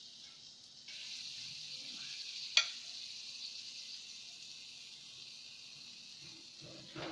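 Freshly grilled chicken legs sizzling on a hot wire grill rack and pan as they are turned with tongs; the hiss starts about a second in and slowly fades. One sharp click of the metal tongs against the rack comes a couple of seconds in.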